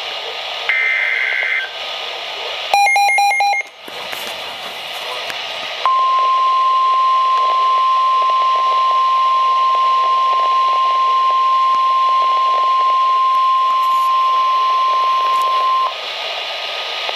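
Weather radio emergency alert: the last two warbling SAME digital header bursts, a short burst of rapid electronic beeps, then the steady 1050 Hz warning alarm tone held for about ten seconds, over a steady hiss. The sequence signals that a new warning message is about to be read.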